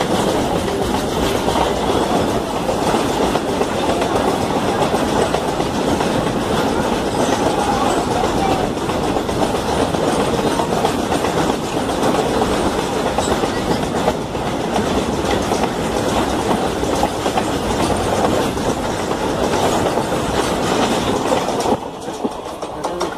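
Steel train wheels clattering over rail joints as a Ro-Ro freight train of lorries on flat wagons passes close by on the adjacent track, heard from a moving train. The noise is loud and steady, then drops suddenly near the end as the last wagon goes by.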